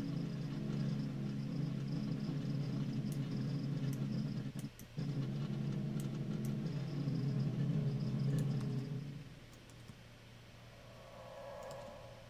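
Low, sustained pad texture from Ableton's Granulator II, a pad sample pitched down an octave, with faint tiny clicks scattered through it. It drops out for a moment about five seconds in and fades away around nine seconds, and a fainter, higher drone swells near the end.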